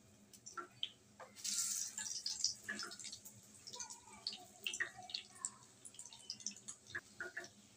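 Egg-coated beef shami kababs frying in hot oil, sizzling and crackling with scattered pops. A louder burst of sizzle comes about a second and a half in, as a kabab is turned over with a spatula and drops back into the oil.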